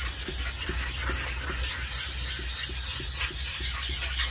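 A Nagura stone rubbed in quick back-and-forth strokes over a wet, hard Japanese-style water stone, a steady gritty scraping. The rubbing grinds away the checker pattern on the new stone's face, working up slurry and flattening it.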